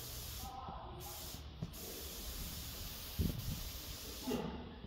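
Gravity-feed paint spray gun hissing as it sprays clear coat, with two brief breaks about a second in. The spray stops shortly before the end. There is a single knock a little past three seconds.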